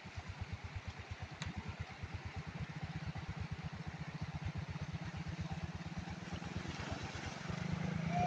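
Small motorcycle engine running at low revs, a steady low putter whose beats quicken and grow louder near the end as the bike rides into a shallow river ford, with water starting to splash.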